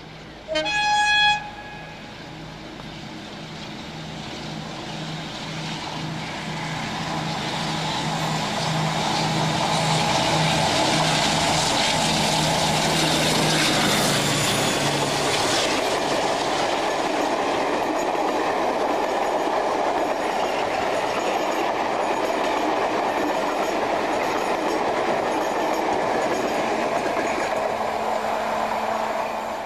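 Class 52 Western diesel-hydraulic locomotive D1015, with twin Maybach diesel engines, gives a short horn blast about a second in. It then approaches and passes close with a pulsing engine note that grows louder and ends as the locomotive goes by, about halfway through. After that come the steady rumble and clatter of the coaches' wheels on the track as the train runs on.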